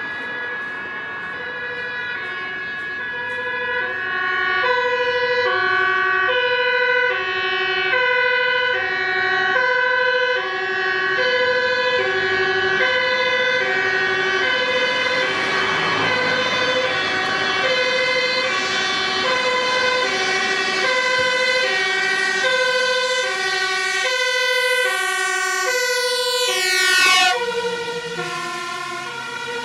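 Fire engine's two-tone siren alternating between two pitches, each held a little over half a second, growing louder as the truck approaches. Near the end it peaks as the truck passes, then drops slightly in pitch and level as it moves away.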